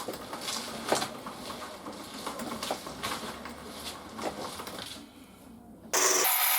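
Scattered light knocks and clicks from workshop handling. Near the end a loud harsh rasping noise starts suddenly.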